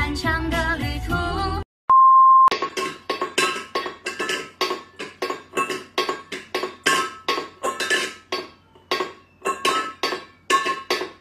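Stainless-steel bowl clinking over and over as a cat paws at it, about three ringing clinks a second. It follows a short stretch of background music and a brief steady beep about two seconds in.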